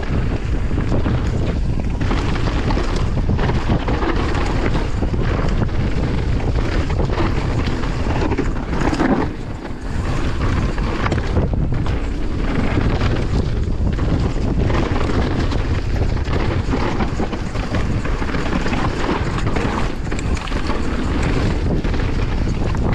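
Wind buffeting a chest-mounted camera's microphone as a downhill mountain bike descends at speed, with steady tyre noise on dirt and frequent knocks and rattles from the bike over rough ground.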